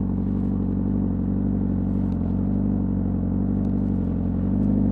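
2025 Honda CBR600RR's inline-four engine with its stock exhaust running at a steady pace while riding, growing a little louder near the end.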